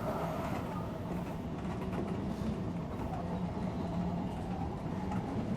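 Odakyu electric commuter train running along the line: a steady rumble of wheels on rail with an even low hum.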